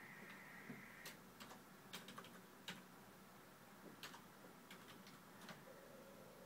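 Faint audiometry test tone, a steady high tone that stops about a second in. Scattered light clicks follow, and near the end a lower test tone starts.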